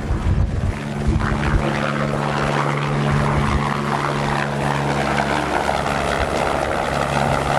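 A steady engine drone that grows louder about a second in. Gusts of wind buffet the microphone in the first second or so.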